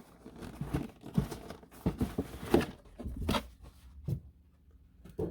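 Cardboard model kit box being opened and handled, with irregular rustling of plastic-bagged parts and a few light knocks, the loudest about a second and a half and three seconds in.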